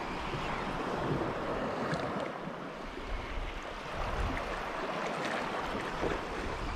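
Small sea waves washing against a rocky shore: a steady rushing noise.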